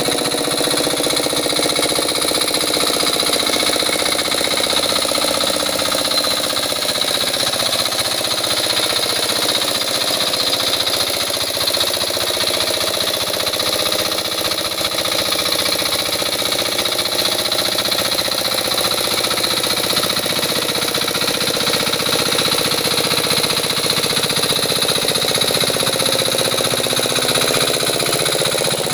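Engine of a walk-behind hand tractor running steadily as its cage wheels churn through a flooded rice paddy.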